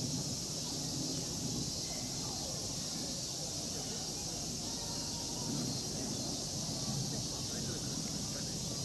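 Murmur of distant visitors' voices over a steady, high-pitched drone of summer insects.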